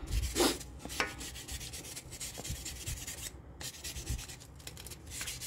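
Wire brush scrubbing a dirty wheel surface with quick, irregular scraping strokes, cleaning it smooth.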